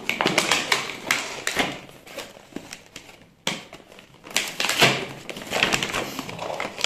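Cardboard box and clear plastic wrapping being handled and pulled open: plastic crinkling with taps and scrapes of cardboard, in irregular bursts with a short lull about three seconds in.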